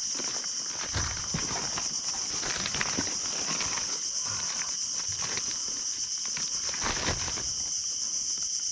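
Steady high-pitched drone of insects, with plastic sack rustling and short knocks of handling gear in an inflatable boat.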